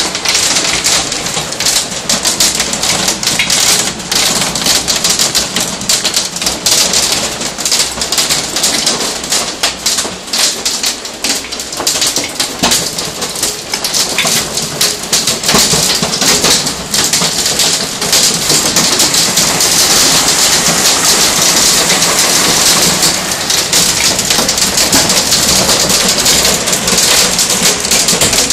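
Hailstorm: hailstones and heavy rain pelting down in a dense, steady clatter of countless small impacts, growing a little heavier about two-thirds of the way through.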